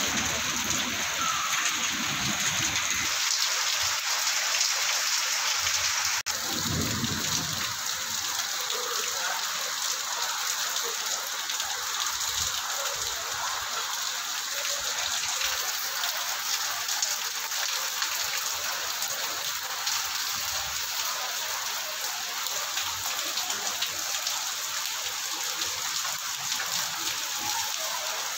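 Heavy rain pouring steadily onto a wet paved courtyard, a constant dense hiss of drops. A low rumble sits under it for the first few seconds and again about six seconds in.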